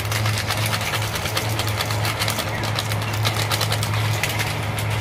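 Cumin seeds crackling with quick, irregular ticks as they dry-roast without oil in a hot aluminium kadhai, over a steady low hum.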